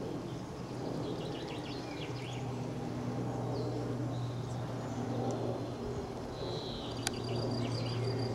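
Outdoor ambience: birds chirping now and then over a steady low hum, with one sharp click about seven seconds in.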